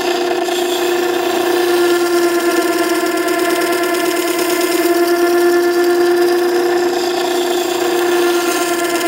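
Makita 9820 electric water-stone sharpener running with a steady whine while a steel chisel bevel is ground freehand against its wet wheel, giving a continuous grinding hiss.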